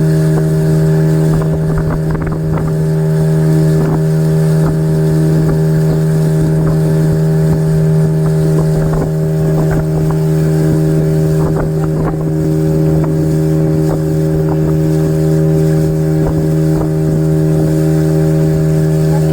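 Speedboat engine running steadily at a constant pitch while under way, with scattered short knocks and rushing noise over it.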